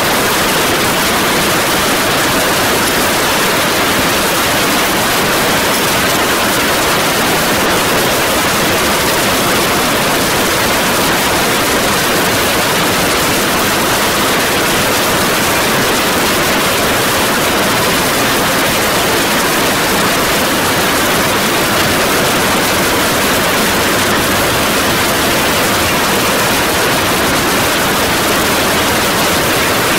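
Heavy rain mixed with hail pouring down, a loud steady hiss that never lets up.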